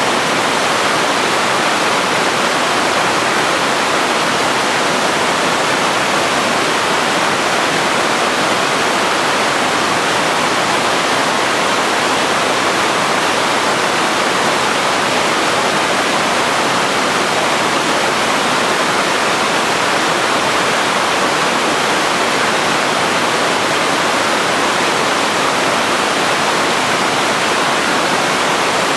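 Steady rush of river rapids: whitewater pouring over rocks, a continuous even noise with no breaks.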